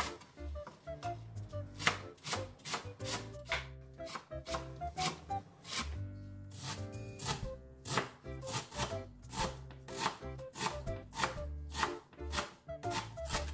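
Chef's knife chopping on a bamboo cutting board, a quick run of knocks about three or four a second: first cutting welsh onion, then, after a short pause, dicing washed aged kimchi.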